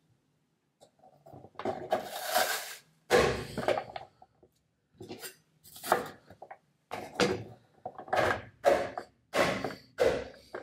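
Kitchen knife cutting an onion on a wooden cutting board: clatter, then a string of short knocks. Near the end comes the lid of a push-down plastic vegetable chopper being pressed down on the onion pieces.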